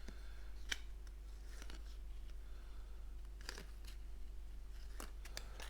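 Printed playing cards being handled, giving a few soft, scattered clicks and taps over a steady low hum.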